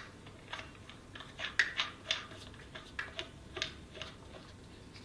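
Small metallic clicks and taps as a compressor's filling valve is threaded by hand onto the G5/8-inch valve of a breathing air bottle, irregular and a few to the second.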